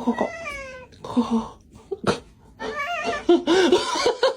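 Domestic cat meowing in several separate calls. The first call falls in pitch, and a longer call comes near the end.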